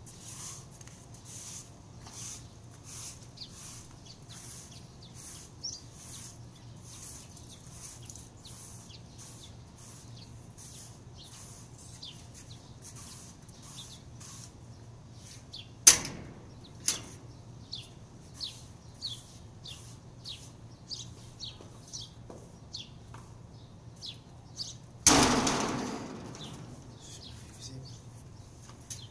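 Broom sweeping a tiled floor, about two short swishes a second. A sharp knock a little past halfway, and near the end a loud rattling rush that fades over a couple of seconds as the metal door is swung open.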